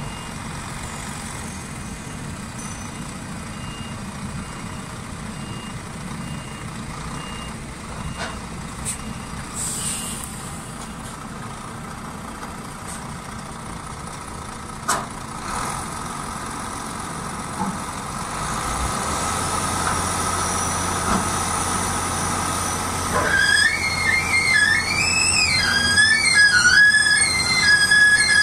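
Hook-lift truck's diesel engine running as it reverses, its reversing alarm beeping for the first few seconds, with a few sharp clanks midway. The engine grows louder in the second half, and near the end a wavering high-pitched squeal sets in.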